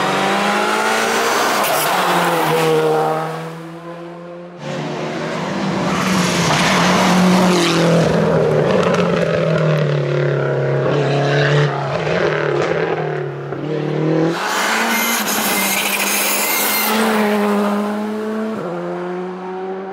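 Rally cars driven flat out on a stage, their engines revving hard and the pitch climbing and dropping with gear changes and braking. The clip cuts between several passes.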